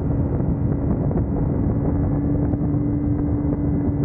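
Kawasaki Ninja motorcycle engine running at a steady pitch while riding, with wind rush over the microphone.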